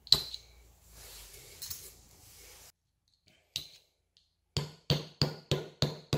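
A large hammer tapping a cement nail through the base of an upturned, water-soaked earthenware ttukbaegi to punch a drainage hole. One sharp strike at the start, another about three and a half seconds in, then a quick run of about six taps, about three a second, near the end.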